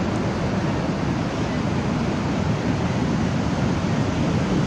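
Ocean surf breaking on a sandy beach, a steady wash of noise mixed with wind.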